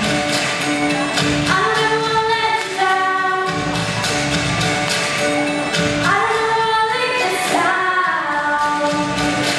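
Two female voices singing a duet into handheld microphones over backing music with a steady beat.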